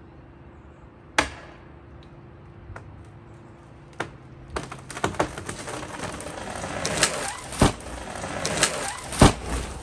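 A tree coming down: a sharp crack about a second in, then the trunk and branches crackling and snapping through brush for several seconds, ending in a heavy thud as it hits the ground.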